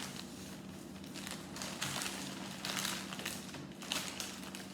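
Small plastic Lego pieces clicking and rattling as they are sorted through by hand, with a steady low hum underneath.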